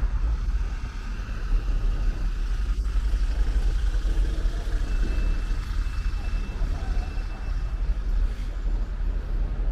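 Low, steady rumble of road traffic on a city street, with a faint high whine between about five and seven seconds in.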